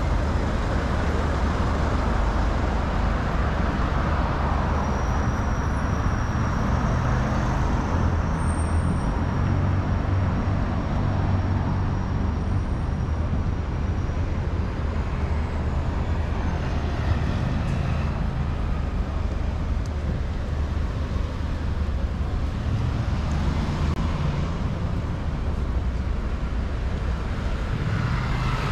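Traffic on a busy city street: a steady mix of vehicle engines and tyre noise, with a low engine hum that swells and fades as vehicles pass.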